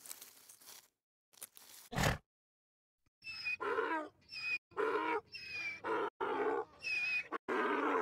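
Donkey braying: a rhythmic run of hee-haw calls starts about three seconds in and keeps going. Before it come a few short, faint scratchy sounds and a sharp thump.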